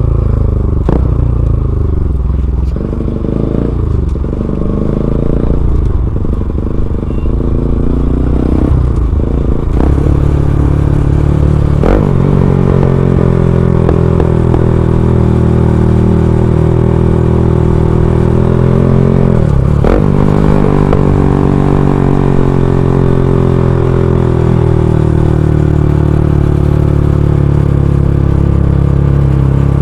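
Bajaj Pulsar NS200's single-cylinder engine through an aftermarket Akrapovic full-system exhaust, ridden hard: the revs rise and fall through several gear changes in the first ten seconds, shift sharply about twelve seconds in and again near twenty, then hold a steady high-rev cruise that slowly eases off.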